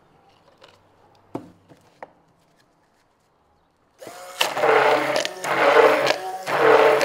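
An electric drill with a mixing paddle starts about four seconds in and runs loudly in surges about once a second, stirring two-part polyurethane foam in a cup. Before it, a few light knocks from plastic cups being handled.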